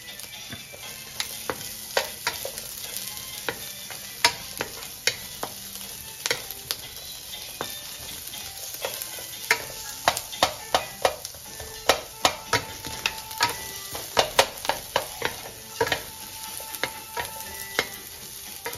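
Sliced red onion and ginger sizzling in a nonstick wok while two wooden spatulas stir and toss them, with frequent sharp clacks of wood on the pan, coming thickest in the second half.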